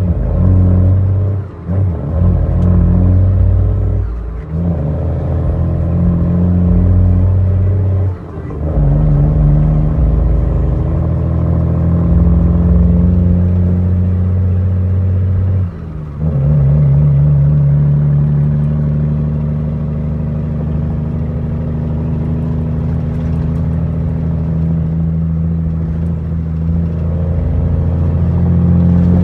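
Cummins M11 inline-six diesel of an International 9200 truck, heard from inside the cab, pulling through several manual gear changes: the engine note dips and resets about four times in the first sixteen seconds, then holds a steady drone at cruising speed.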